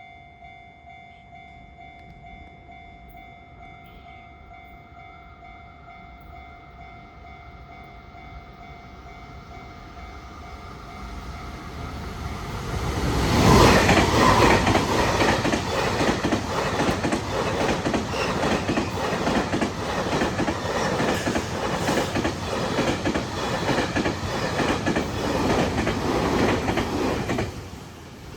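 JR Freight M250-series Super Rail Cargo electric container train passing over a level crossing. The sound builds from about ten seconds in, then from about thirteen seconds the wheels clatter over the rail joints in a dense run of clicks for some fifteen seconds before dropping away near the end. Before the train arrives, the level-crossing warning bell rings steadily.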